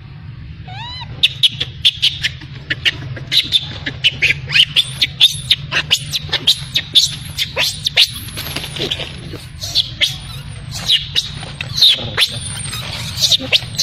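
Newborn macaque squeaking and crying: a quick run of short, sharp high-pitched squeaks with a few longer rising cries.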